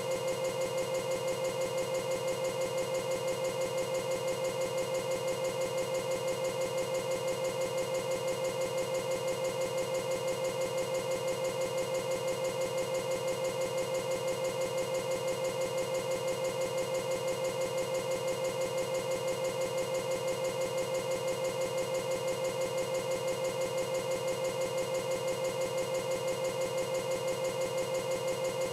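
Steady, unchanging electronic buzz with a fast, even flutter, the sound of a corrupted audio track rather than music or speech.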